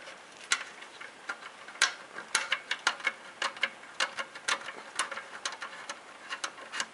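A screwdriver undoing a screw in an Xbox 360 Slim's casing: a run of small, sharp, irregular clicks and ticks, a few at first and then several a second.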